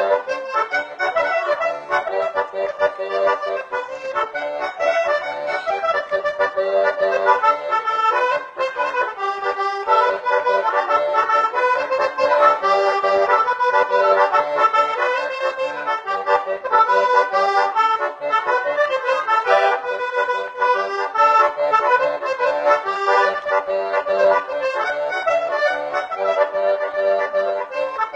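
Accordion playing a tune in a traditional style: a moving melody over short, repeated bass notes.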